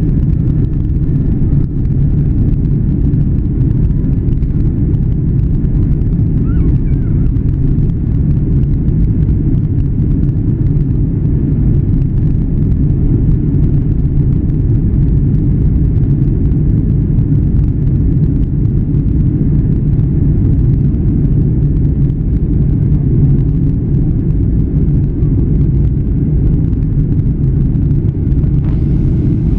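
Boeing airliner's engines and airframe heard from inside the passenger cabin during the takeoff run and initial climb: a loud, steady low rumble.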